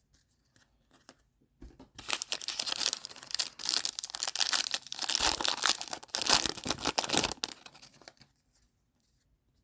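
Plastic foil wrapper of a trading-card pack being torn open and crinkled, a dense rapid crackling that starts about two seconds in and stops about two seconds before the end.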